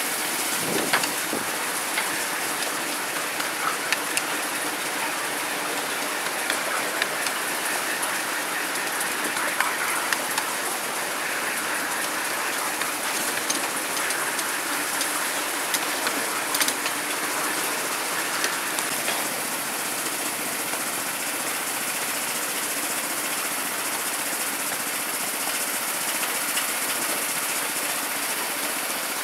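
Miniature railway train running along the track, heard from the carriage: a steady running noise with scattered sharp clicks.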